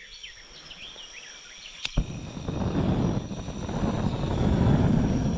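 Birds chirping at the waterside. About two seconds in, a click is followed by a loud, low rumbling noise that swells and drowns the birdsong.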